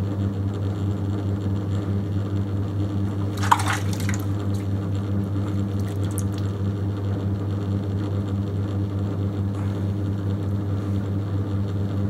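Electric potter's wheel running with a steady low hum while fingers work wet clay on the spinning pot. About three and a half seconds in there is one brief wet squelch as the fingers press down on the clay.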